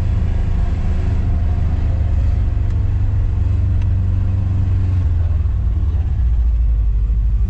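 Motor vehicle driving: a steady low engine and road rumble that drops slightly in pitch about five seconds in.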